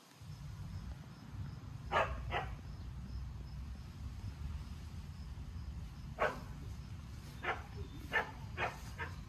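A dog barking off and on, in short single barks: two close together about two seconds in, then five more in quick succession over the last three seconds, over a steady low rumble.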